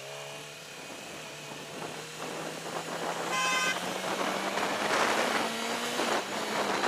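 A vehicle horn blasts once for about half a second, a little past the middle, honking at a passing motorcyclist.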